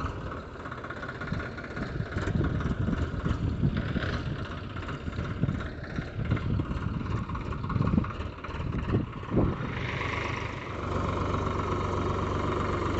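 Swaraj 744 XT tractor's three-cylinder diesel engine running under load while pulling a fully loaded trolley. The low rumble is uneven for the first ten seconds, then settles into a steady, even run from about eleven seconds in.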